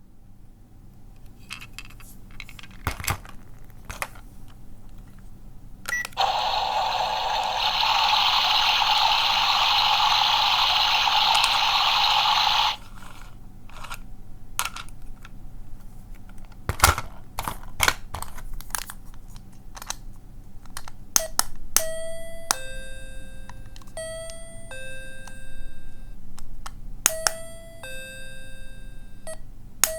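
Small electronic sound toy played button by button: clicks of the buttons, a steady hissing electronic sound effect lasting about six seconds, then many short electronic beeps at stepping pitches, like a doorbell or phone ringtone.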